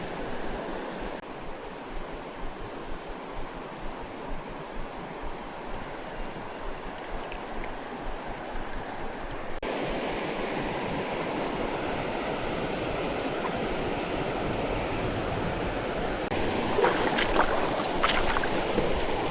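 Creek water flowing with a steady rushing noise, with a few light knocks near the end.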